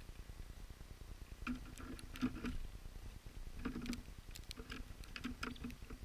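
Black-capped chickadee pecking and hopping at the seed feeder, light quick taps and clicks on the hard surfaces close to the microphone, coming in three short clusters from about a second and a half in.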